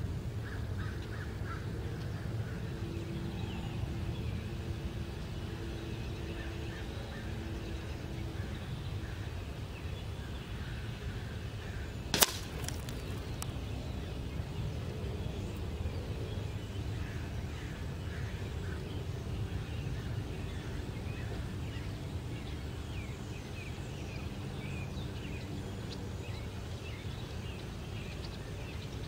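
Steady low outdoor rumble with birds chirping now and then. A single sharp crack about twelve seconds in is a shot from a break-barrel air rifle landing at the aluminium-can targets, followed by a couple of faint ticks.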